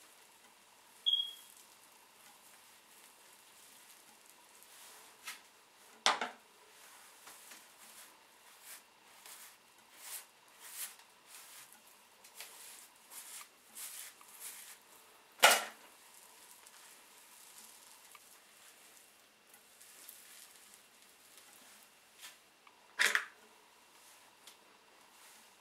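Curly hair being handled and brushed up into a clip, soft scratchy rustling through the hair, with three sharp clicks about six, fifteen and twenty-three seconds in, the middle one loudest.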